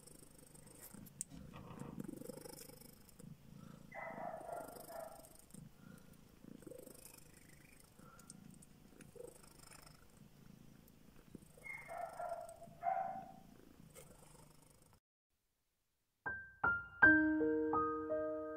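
Mother cat purring steadily while her kittens nurse, with a few short higher sounds around 4 s and 12–13 s. The purring stops about 15 s in, and after a brief silence gentle piano music begins near the end.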